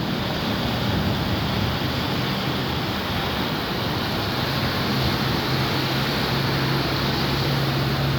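Heavy rain pouring steadily in a summer thunderstorm, an even rushing hiss, with a low steady hum underneath.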